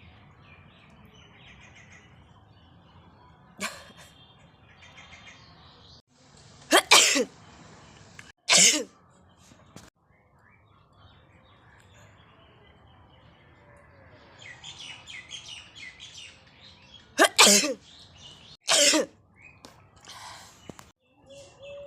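A woman sneezing, the sneezes set off by tickling inside her nose with a thin stick. Four loud sneezes come in two pairs, the first about seven seconds in and the second about ten seconds later, with quieter sniffs and breaths between them.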